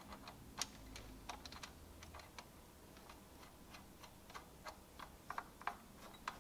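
Faint, irregular light metallic clicks of a nut being spun by hand onto the threaded rod of a cam bearing puller.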